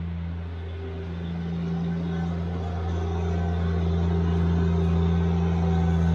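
Subcompact tractor's engine running steadily, growing gradually louder.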